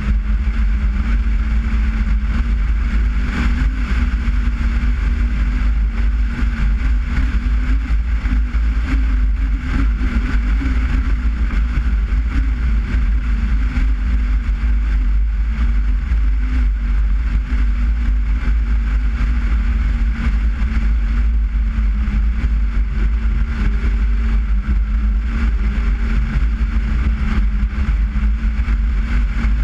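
Skoda Forman car driving at a steady pace, its engine running evenly under a heavy low rumble of road and wind noise.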